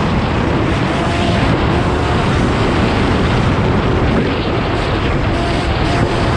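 Off-road motorcycle engine running steadily while riding along a bumpy dirt track, heard from the bike itself, with heavy wind rumble on the microphone.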